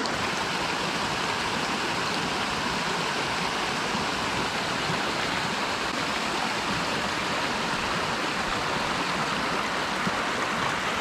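Steady rushing of a mountain stream, water pouring over a check dam into the pool below.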